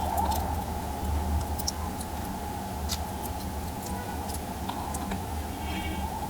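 Scattered small clicks and taps from tiny smartwatch parts and precision tools being handled, over a steady low hum.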